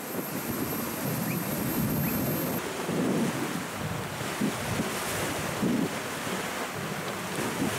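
Wind buffeting the microphone in uneven gusts, over a steady wash of sea noise.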